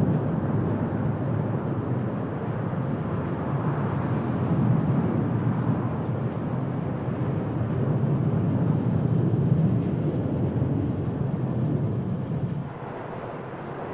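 Boeing 747-400 freighter's four jet engines making a steady, heavy rumble as it lands, until the sound drops suddenly near the end.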